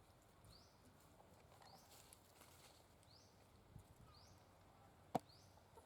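Faint outdoor ambience with a short, high rising chirp from an animal repeating about once a second, and one sharp click about five seconds in.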